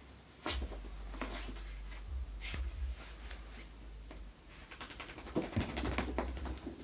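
A freshly bathed dog rubbing and rolling against carpet and the foot of a couch: irregular scratchy scuffing of fur on fabric, in clusters with short pauses between.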